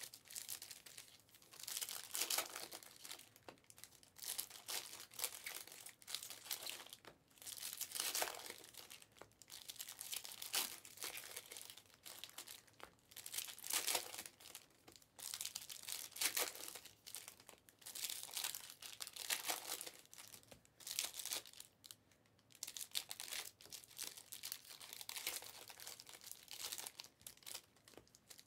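Foil wrappers of Panini Prizm basketball trading-card packs crinkling and tearing as they are opened by hand, a faint rustle coming every second or two.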